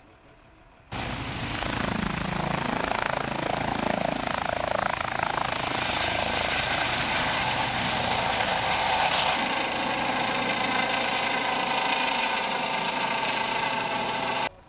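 ADAC air-rescue helicopter with a shrouded fenestron tail rotor, running close by: a steady rotor and turbine noise topped by a high, even whine. It starts suddenly about a second in and cuts off just before the end.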